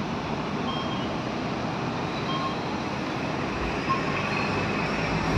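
Steady city street ambience, a constant hum of distant traffic, with a few faint short high tones now and then.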